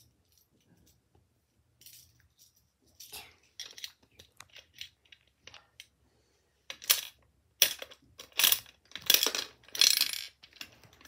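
Pennies and gumballs clinking and rattling in a small plastic toy gumball machine as it is worked by hand. Scattered light clicks come first, then from about seven seconds in a run of louder, sharper rattling bursts.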